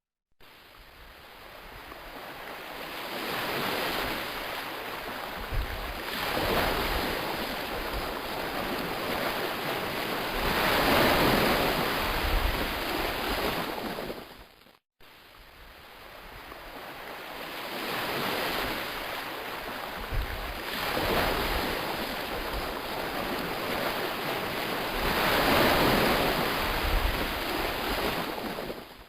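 Sound-effect recording of ocean surf, waves slowly swelling and washing out. The same stretch of about fifteen seconds plays twice, with a brief dropout just before the halfway point.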